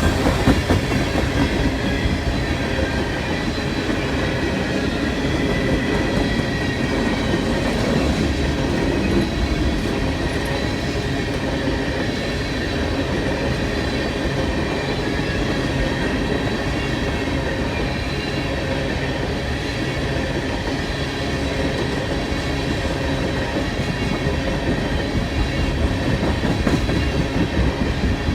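Freight train of empty ethanol tank cars rolling past slowly, wheels clacking over the rail joints with a faint thin wheel squeal, steady throughout.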